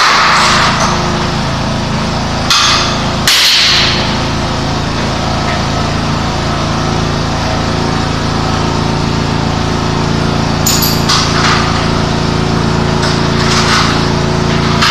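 Half a dozen sharp strikes, a pair about three seconds in and a cluster near the end, over a steady motor hum, typical of fastening wall framing.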